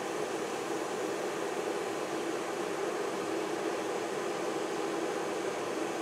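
Bodum Bistro 0.5-litre electric kettle heating water: a steady rushing hiss as the water works up toward the boil, not yet at a full rolling boil.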